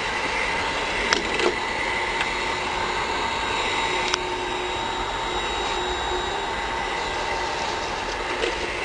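Hot-air blower and heat gun of a PVC banner welding machine running steadily, a rushing of air with a faint steady whine. A few light clicks come about a second in and again about four seconds in.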